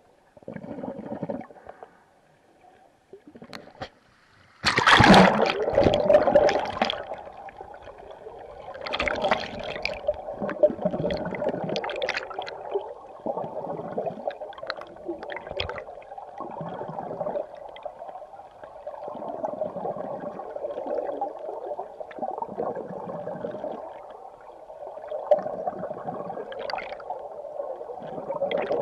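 Flowing river water heard underwater: a steady gurgling rush with irregular surges. It comes in suddenly and loudly about five seconds in, after a stretch of near quiet.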